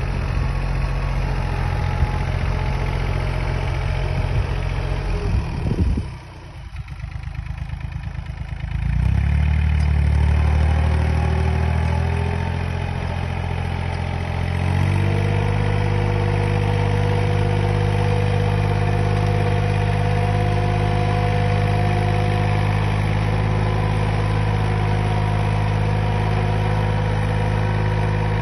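Yanmar F-7 compact tractor's diesel engine running while it pulls a rotary tiller through soil. The engine note drops about six seconds in, comes back up around nine seconds, and settles into a steady run from about fifteen seconds.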